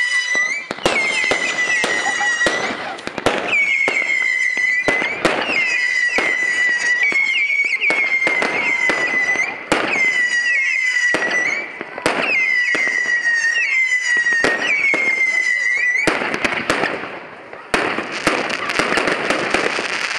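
Fireworks display: a rapid series of whistling fireworks, each a falling whistle about a second long that levels off, mixed with sharp bangs. About 16 s in the whistles stop, giving way to dense crackling and bangs.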